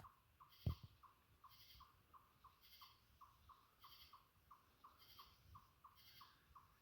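A faint, steady series of short, slightly falling call notes, about three a second, from a small animal calling, with one soft thump under a second in.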